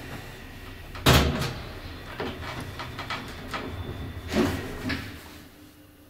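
Elevator car with a folding scissor gate running with a steady low hum. A loud clunk about a second in is followed by scattered metal clanks and clicks, and the hum dies away near the end as the car comes to a stop at a landing.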